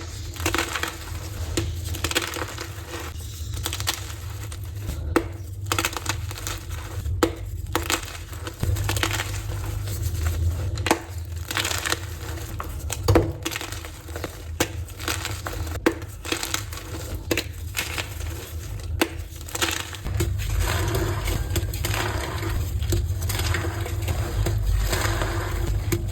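Blocks of gym chalk (magnesium carbonate) being crushed and crumbled, a continuous run of crisp crunches and squeaks. The crunching turns denser and steadier about twenty seconds in.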